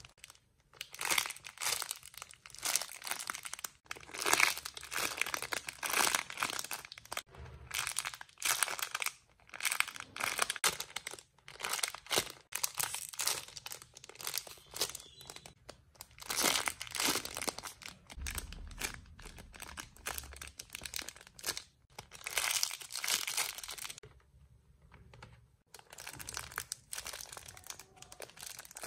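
Plastic packaging crinkling and rustling as squishy foam toys are handled, in bursts of a second or two with short pauses and a longer pause about two thirds of the way through.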